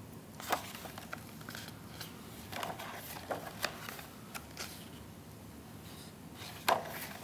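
Pages of a softcover photobook being turned and pressed flat by hand: a series of soft paper rustles and flicks, the sharpest one near the end.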